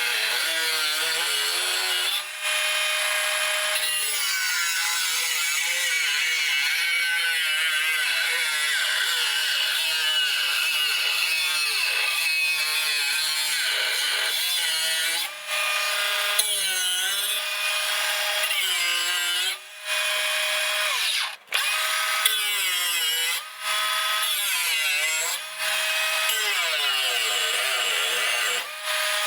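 Electric power tool cutting or grinding a 1084 steel knife blank: a high motor whine whose pitch keeps dipping and recovering as the tool is loaded, broken by a few short, abrupt gaps.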